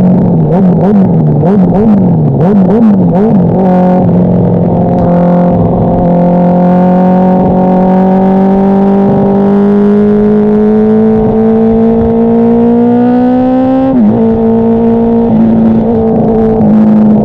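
Honda CBR1000RR inline-four sportbike engine through an aftermarket exhaust with an enlarged silencer. It is blipped several times in quick succession, then pulls with revs climbing steadily for about ten seconds, and the pitch drops suddenly near the end before holding steady.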